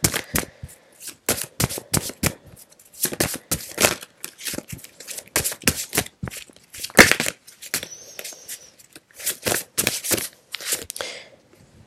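Tarot cards being shuffled by hand: a quick, irregular run of papery slaps and rustles as the deck is worked, which stops shortly before the end.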